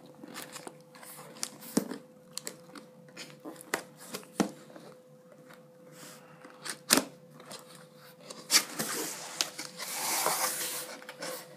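Cardboard laptop box being opened by hand: scattered sharp taps, clicks and scrapes from the box and its flaps, then a longer crinkling rustle of plastic wrapping near the end.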